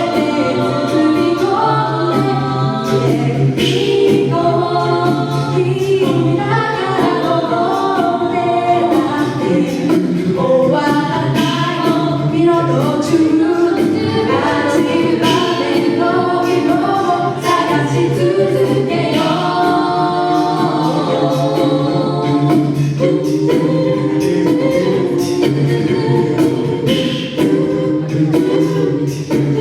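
An a cappella vocal group singing a song in close harmony, with a sung bass line underneath and a steady percussive beat.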